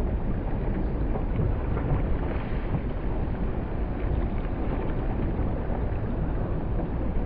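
Steady low rush of wind buffeting the microphone on a moving boat, with water noise underneath.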